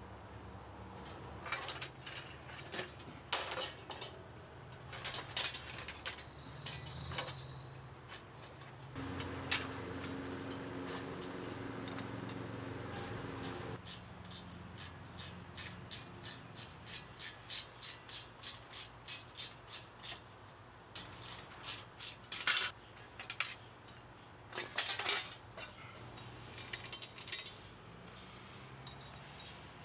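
Metal clicks, taps and clanks of hand tools and parts on an old steel bicycle being taken apart, including a run of evenly spaced ratcheting clicks, about three a second, in the middle. A steady hum sounds for a few seconds before it, and the loudest clanks come later on.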